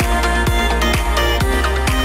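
Background electronic dance music with a heavy bass and a steady kick drum, about two beats a second.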